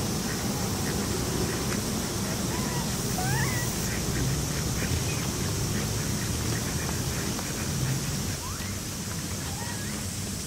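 Short, soft bird calls: a few quick rising chirps a few seconds in and again near the end, over a steady outdoor hiss.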